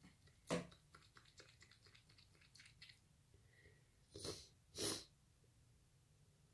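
A person's nose: one sharp nasal burst about half a second in, faint scattered clicks, then two short forceful bursts of air through the nose about four and five seconds in.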